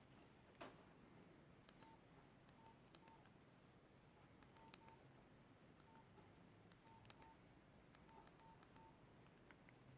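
Faint, short keypad beeps from a Nokia 5130 XpressMusic as its buttons are pressed: about a dozen single-pitch beeps at an uneven pace, some in quick pairs, with soft key clicks. A sharper tap comes about half a second in.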